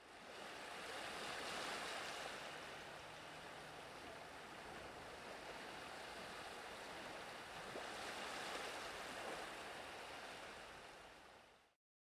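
Faint sea surf: a steady wash of waves that swells twice and stops just before the end.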